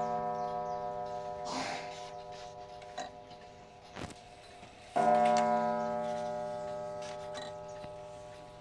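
Mantel clock's strike gong ringing: one stroke just before the start fades slowly, and a second single stroke about five seconds in rings and dies away, set off as the minute hand is pushed round by hand. A few faint clicks fall between the strokes.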